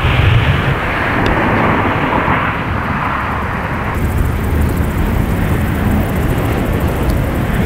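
Airbus A350 Rolls-Royce Trent XWB engines running at taxi power: a steady rumble with a broad hiss. About four seconds in, the sound changes to a lower rumble with a fast, high ticking, from an aircraft tow tractor pulling an unpainted A350.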